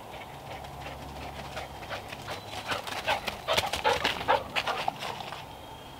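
Dogs running through dry fallen leaves: a quick crackling rustle of paws that builds, is loudest about three to four seconds in as they pass close, then fades.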